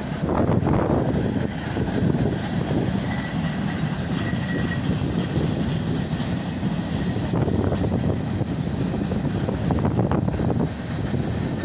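Freight cars of a Union Pacific manifest train rolling past close by: a steady rumble and clatter of steel wheels on the rails.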